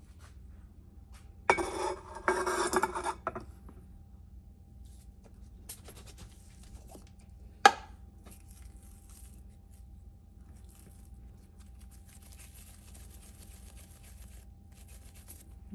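Kitchen handling sounds: a clattering scrape lasting about two seconds from a second and a half in. About halfway through comes one sharp knock as a plastic measuring cup is set down on a glass-ceramic cooktop. Faint rustling follows as hands work the dough.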